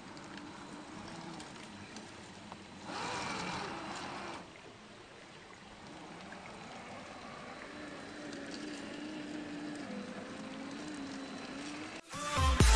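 Brushed 550-size electric motor and gears of a Traxxas TRX4 RC crawler whining faintly at crawling speed, the pitch rising and falling with the throttle, over running stream water. About three seconds in, a louder rush of water lasts about a second and a half.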